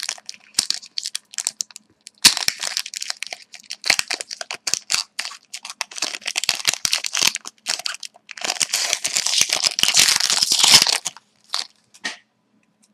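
Wrapper of a Panini Titanium hockey card pack being torn open and crinkled in the hands. It crackles in irregular bursts, with a long, loud spell of crinkling in the last third that stops about a second before the end.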